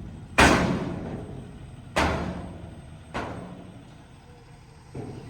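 Tri-axle dump truck unloading a load of asphalt millings: four heavy booming thuds, each fading over about a second, over the truck's engine running low and steady.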